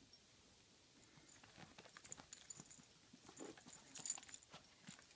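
Faint scattered rustling and soft clicks from a Shih Tzu burrowing and rubbing its head against a blanket on carpet, with one sharper click about four seconds in.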